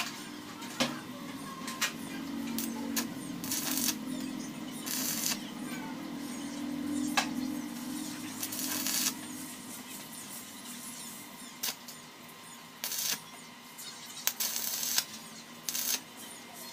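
Stick welder arcing on a steel water tank's seam: several brief bursts of arc noise, each about half a second, as tack welds are struck, with sharp clicks between them.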